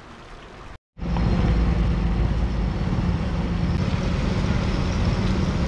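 A motorcycle engine running steadily while being ridden: a low, even drone that starts abruptly about a second in, after a brief faint quiet stretch.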